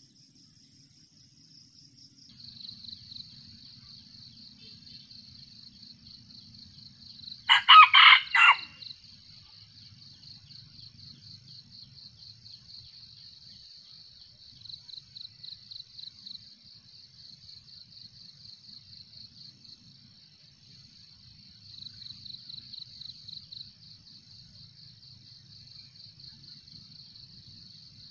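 A red junglefowl rooster crows once, a short crow of about a second, roughly eight seconds in. Insects buzz in a steady, finely pulsing high drone throughout.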